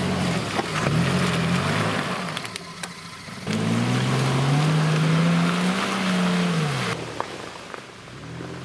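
Mitsubishi Pajero Sport SUV's engine revving under load as it churns through deep mud, its pitch climbing and falling in long swells. There are a few sharp knocks about halfway.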